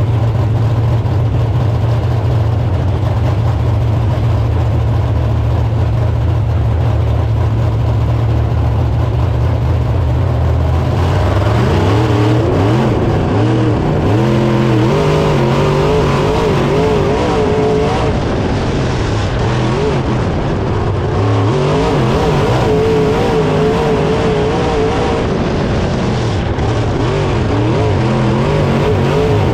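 Dirt late model race car's V8 engine heard from inside the cockpit. For about the first ten seconds it runs as a steady low drone. It then revs up and down continually as the car is driven hard around the dirt oval.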